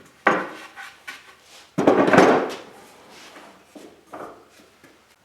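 Wood knocking and clattering in a small room: a sharp knock near the start, a louder, longer clatter about two seconds in, and a few lighter knocks after it.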